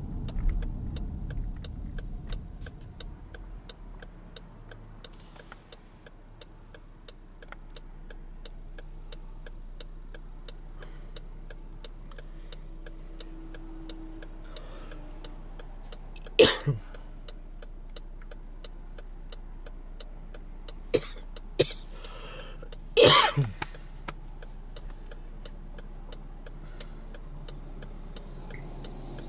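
Car turn-signal indicator ticking steadily, a few ticks a second, over the low hum of the car's cabin. A person coughs or clears their throat loudly a few times around the middle.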